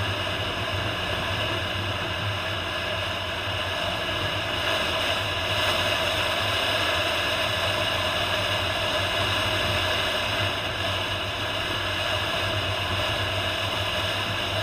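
Toyota Land Cruiser on the move: a steady engine and road drone, a little louder in the middle.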